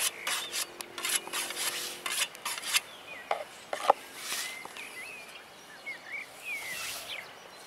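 Hand scythe swishing through tall grass in a series of cutting strokes, densest in the first three seconds, then a few more further on.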